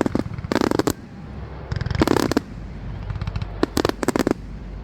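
Fireworks going off: several bursts of rapid crackling bangs, about one every second or so, over a low rumble.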